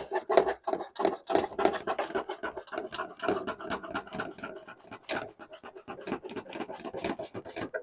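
Hand ratchet clicking rapidly, several clicks a second, as it runs down the power steering reservoir's mounting bolts until they are snug. It stops just before the end.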